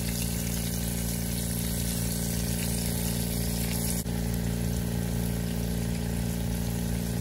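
A skinned snake frying in hot oil in a skillet: a steady sizzle over a steady low hum, with a short break about four seconds in.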